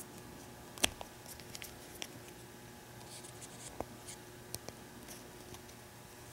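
Small plastic figure parts clicking and rubbing as fingers handle and adjust a Nendoroid figure. There is a sharp click about a second in, then scattered lighter clicks and scrapes over a faint steady hum.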